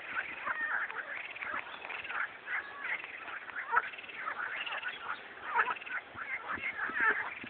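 Frogs calling back and forth, a continuous run of short overlapping calls with no break.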